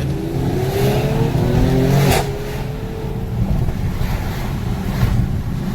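E85-fuelled car engine accelerating, its pitch rising over about three seconds, with a sharp crack about two seconds in.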